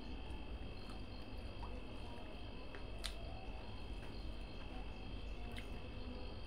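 Steady high-pitched insect drone, typical of crickets, over a low hum. A few faint clicks of a hand working rice on a steel plate come through, one sharper about three seconds in.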